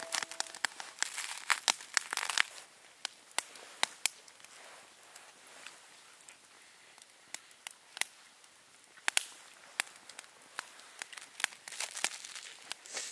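Wood crackling and popping in a campfire: irregular sharp cracks, with a dense flurry about a second in and another near the end.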